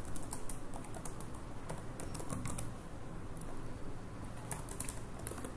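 Computer keyboard being typed on: irregular runs of key clicks with short pauses between them, fairly quiet.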